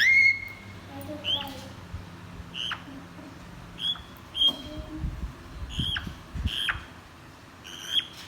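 Grey parrot giving a string of short chirping whistles, about eight in all, each one high and dropping in pitch at the end; the first, right at the start, is the loudest.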